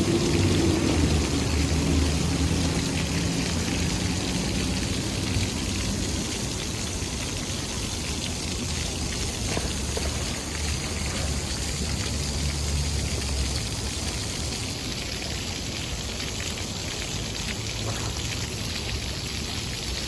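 Ground-level plaza fountain: a row of small vertical water jets splashing back down into a shallow basin, making a steady patter and rush of falling water. A low rumble runs underneath and eases off about two-thirds of the way through.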